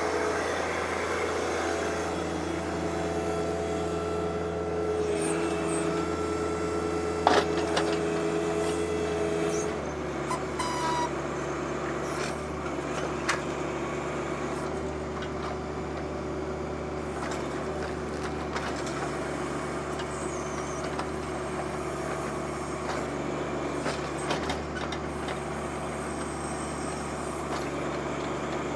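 Compact tractor diesel engines running steadily under backhoe work on a stump. The engine note drops about ten seconds in, and a sharp knock comes a couple of seconds before that.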